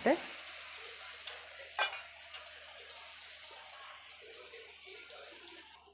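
Masala-coated fish frying in hot coconut oil in a pan, a steady sizzle that slowly grows fainter, with a few sharp clicks of a utensil against the pan about two seconds in.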